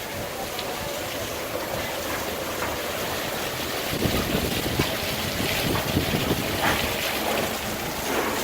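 Steady outdoor rush of wind and rain, with gusts buffeting the microphone from about four seconds in.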